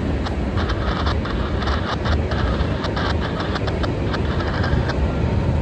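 Freight train cars rolling past with a steady low rumble, and quick sharp wheel clicks and clatter that stop about five seconds in.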